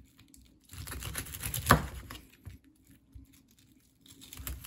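Serrated knife sawing through the crisp, crackled skin of roast pork belly: a run of crunchy crackles starting about a second in, with one sharper crack in the middle, a quiet pause, then crackling again near the end.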